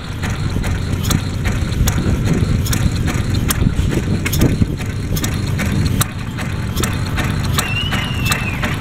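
Replica of Henry Ford's kitchen sink engine, a single-cylinder gasoline engine built from plumbing parts, running with sharp, unevenly spaced firing pops, about two to three a second, over a low rumble. The uneven firing goes with its hand-set gasoline drip feed, which has to be just right for the engine to run properly.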